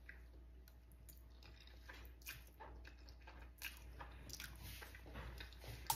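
Faint mouth sounds of a person eating spaghetti: soft, wet clicks of sucking in noodles and chewing, scattered and a little busier from about two seconds in.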